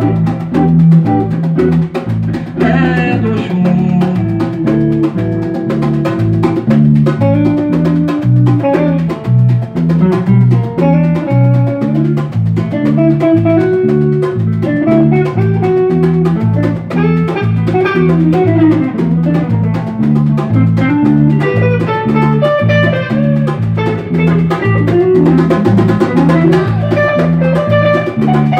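Instrumental passage of a Brazilian song: a bass guitar plays a repeating line under a plucked-string melody, with drums and percussion keeping a steady groove.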